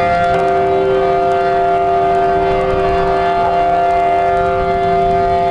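Outdoor tornado warning siren sounding a steady, unbroken tone, several pitches held together.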